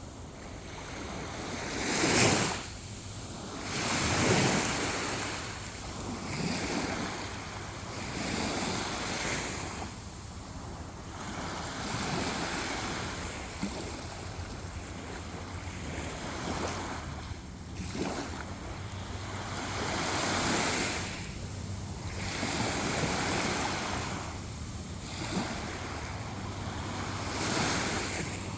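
Sea waves breaking and washing on a beach, the surf rising and falling in swells every few seconds, with wind buffeting the microphone.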